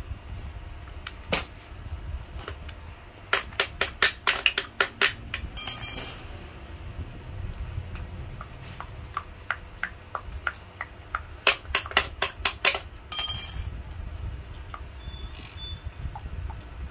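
Metal clicking while the handlebar of a child's bicycle is fitted: two runs of quick sharp clicks, each ending in a short metallic ring.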